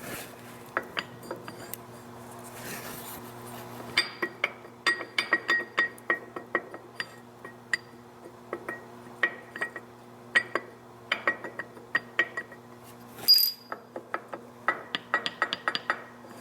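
Many light metallic clinks and taps of steel tools and parts being handled, irregular and briefly ringing, with one sharper clank about thirteen seconds in, over a steady electric machine hum.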